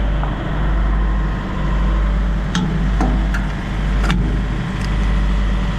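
Steady low mechanical drone that swells and eases every second or two, with a few sharp clicks and clunks as a fuel nozzle is fitted into a truck's AdBlue tank filler.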